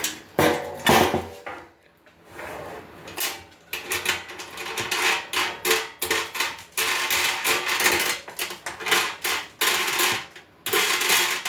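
Grill parts being handled and fitted together during assembly: a busy run of knocks, clatters and rattles, with a short lull about two seconds in.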